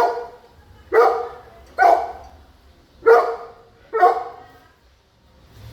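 Big dog barking: five loud single barks, roughly one a second, then stopping.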